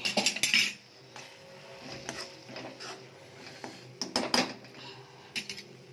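A spoon stirring and scraping masala in a pan, with a cluster of loud scrapes at the start and another about four seconds in, over the faint steady sizzle of the masala frying in oil.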